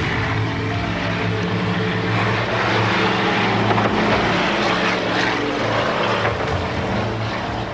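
Several Chevrolet Camaros' engines running steadily together as the cars drive in close formation, a continuous droning hum with tyre and road noise over it.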